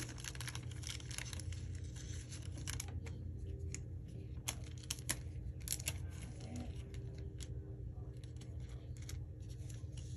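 Pokémon trading cards being handled and slid against one another: a scattered string of faint papery clicks and rustles over a low steady hum.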